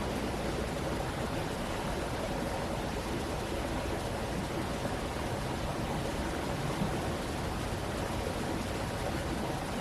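A stream running steadily, a constant rushing of water with no breaks or distinct events.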